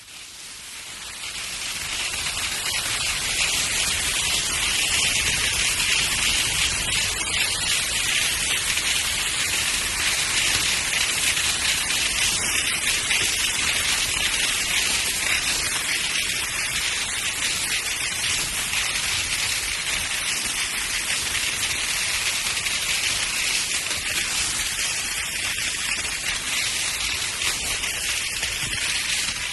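Skis sliding downhill over snow: a steady hiss that fades in over the first two seconds, then holds.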